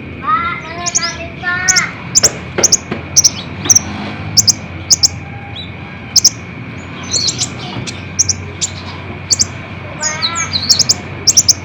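Kolibri ninja sunbird singing: sharp, very high chirps, often in quick pairs, repeated throughout, with a lower warbling run of falling notes at the start and again about ten seconds in.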